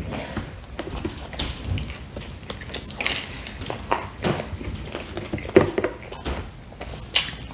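Close-miked chewing of a mouthful of pizza, with irregular sharp wet mouth clicks and smacks.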